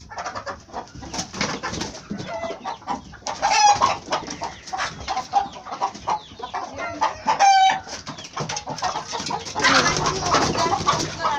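Chickens clucking and squawking in alarm in the coop, with two loud drawn-out squawks about three and a half and seven and a half seconds in. The hens are scared, it seems, by people coming into the coop.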